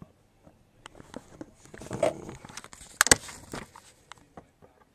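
Handling noise from the Flip video camera being moved and propped up on a desk: irregular knocks and clicks with rustling between them, the sharpest knocks about three seconds in.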